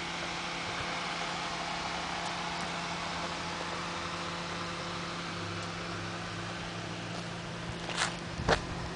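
Steady mechanical hum over an even hiss, with a few short sharp knocks near the end.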